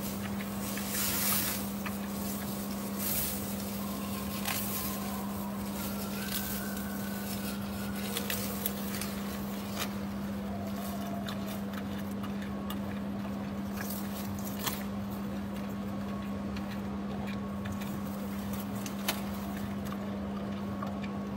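Giant panda chewing bamboo, with scattered crunches and snaps of leaves and stems, over a steady low hum.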